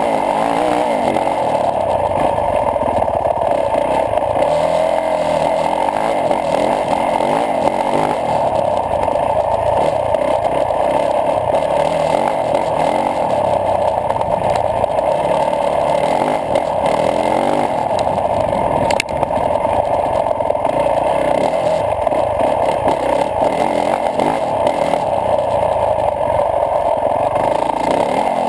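Yamaha YZ450F motocross bike's single-cylinder four-stroke engine running as the bike is ridden along a dirt track. The sound is muffled and steady through a GoPro housing.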